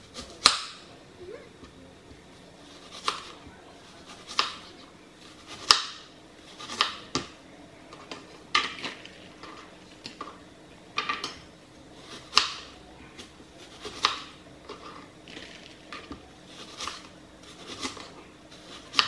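Kitchen knife slicing a white onion on a plastic cutting board: sharp, irregular knocks of the blade striking the board, roughly one every second or so, some in quick pairs.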